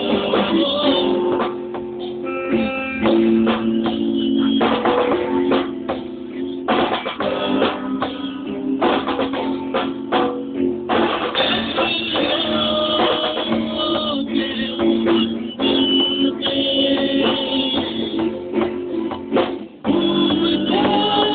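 Rock band music led by guitar, with drum kit and bass; the sound briefly drops out just before the end.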